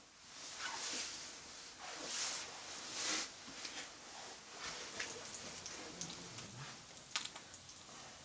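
Small Agnihotra fire of dried cow dung and ghee burning and crackling, with a few soft swells of hiss in the first three seconds and scattered small cracks later, the sharpest about seven seconds in.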